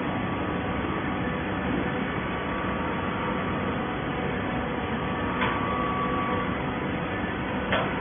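Automatic horizontal baler running: a steady mechanical hum and hiss, broken by two sharp metallic clanks, one about five and a half seconds in and one near the end.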